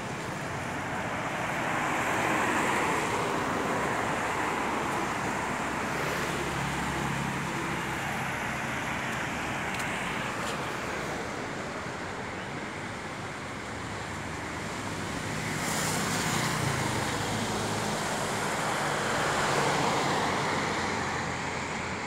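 Road traffic on a wet street: cars and pickups passing, their tyre and engine noise swelling and fading as each goes by, with louder passes a couple of seconds in and twice more in the last third.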